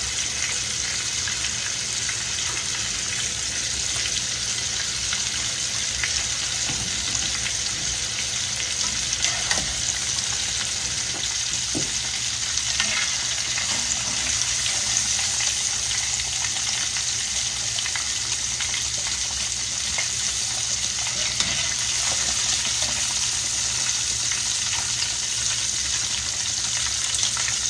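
Catfish fillets deep-frying in hot grease: a steady sizzle with a few faint ticks.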